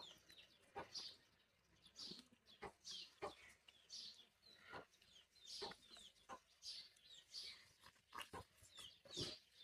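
Faint, short, high bird calls, each sliding downward, repeating roughly once a second, with a few faint clicks between them.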